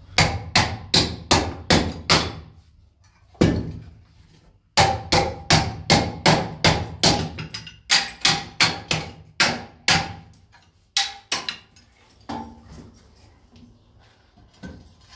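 Hollow clay brick being struck with sharp, repeated blows to chip it to size, about two or three a second: a burst of six, a pause, then a long run of a dozen or more, thinning out after about eleven seconds.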